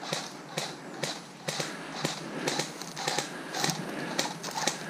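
Footsteps crunching through dry bracken and dead leaves at a walking pace, about two steps a second, with rustling between them.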